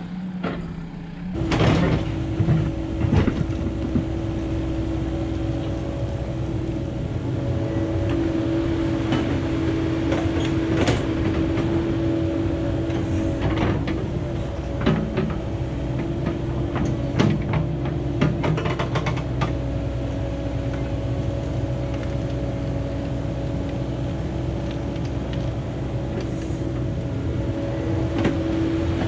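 Cat 308 excavator running with a steady engine hum that picks up about a second and a half in, with scattered clanks and knocks from the machine at work.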